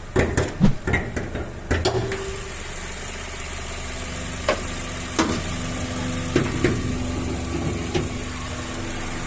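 Chevrolet Cobalt 1.8 four-cylinder flex-fuel engine idling steadily, its timing belt retensioned so it no longer slaps against the cover. A cluster of sharp knocks and clicks in the first two seconds, and a few single clicks later.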